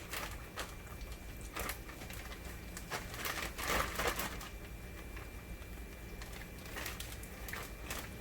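Battered oyster mushroom pieces frying in hot oil: a soft sizzle with scattered crackles and pops, busiest about three to four seconds in.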